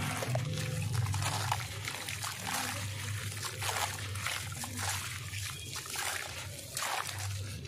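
Gritty sand-cement chunks being crushed by hand and poured back into a plastic tub: a continuous sandy hiss of falling grit with many small crunches and crackles, over a low steady hum.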